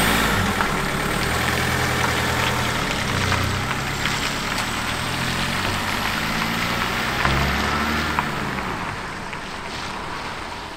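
Mercedes Vito van's engine pulling away and driving off, its note shifting up and down in pitch, growing fainter over the last few seconds as it moves off.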